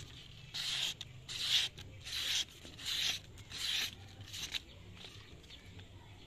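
Karambit blade slicing through a hand-held sheet of paper: about six quick papery cuts, one every second or less, stopping a little over four seconds in. It is a paper-cutting test, and the cuts show the edge is still sharp.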